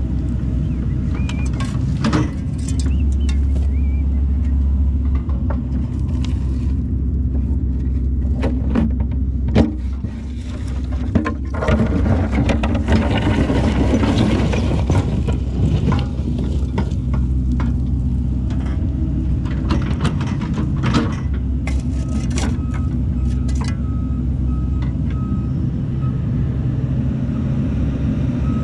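Hydraulic excavator's diesel engine running steadily under load while its bucket digs a trench, with repeated clanks and scrapes of the bucket on stony gravel and a louder stretch of digging about halfway through. A faint reversing-alarm beeping starts near the end.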